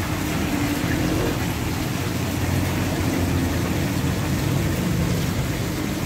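Water from an aquarium's tall waterfall feature running down a moss-covered wall and splashing into the tank, a steady rushing noise.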